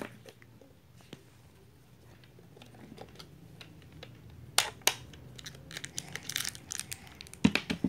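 Small plastic toy parts being handled: scattered light clicks and taps, two sharper clicks about halfway through, then crinkly rustling and more clicks near the end.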